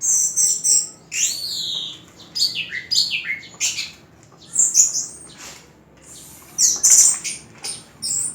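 Orange-headed thrush singing: bursts of quick, varied sweeping whistled phrases, with a short pause about two-thirds of the way through.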